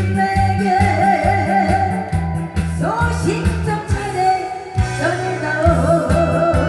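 A woman singing into a microphone through a PA system, with her voice wavering on held notes over amplified accompaniment with a steady beat.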